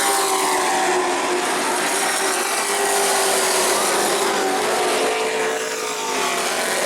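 Race trucks' engines running at speed on an asphalt short-track oval, several engine notes slowly rising and falling in pitch as the trucks go around, with a slight dip in loudness about six seconds in.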